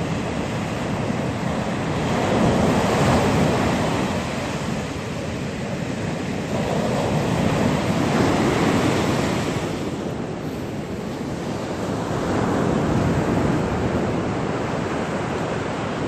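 Ocean surf breaking and washing up a sandy beach, swelling and falling back three times.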